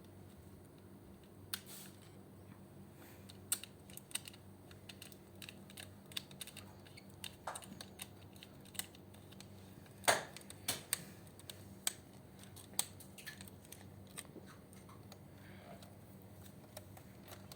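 Irregular light clicks and taps, with a louder knock about ten seconds in, over a steady low hum.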